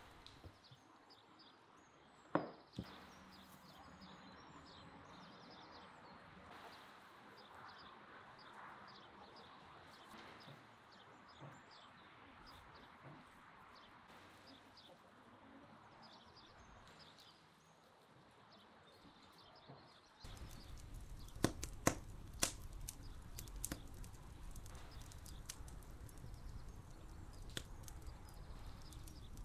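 Faint outdoor yard ambience with light bird chirps and a single sharp click. About two thirds of the way through, a louder, lower background cuts in, carrying several sharp clicks and knocks.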